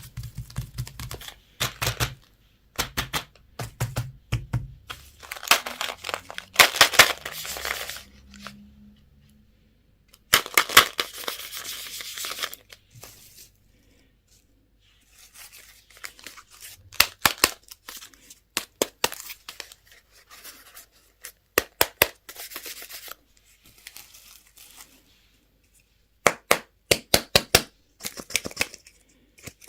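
Candy and toy packaging being torn open and crinkled by hand: longer rustling tears alternate with many sharp clicks and taps.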